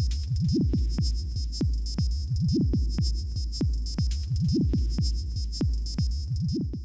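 Electronic outro music: a steady beat of deep thumping kick drums over a sustained bass and high synth tones, fading out right at the end.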